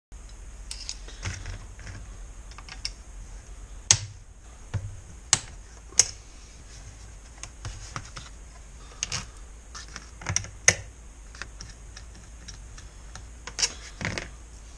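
Hand tools and small metal parts clicking and knocking against the Honda GX35 kayak motor and the wooden workbench as it is unscrewed and taken apart: irregular light taps with a few sharper knocks, over a low steady hum.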